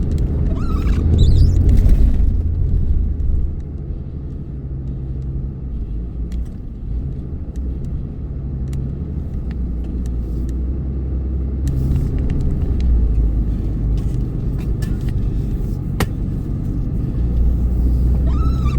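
Pickup truck's engine rumbling steadily as it drives slowly through deep snow, breaking trail. A few light clicks and knocks are heard over it.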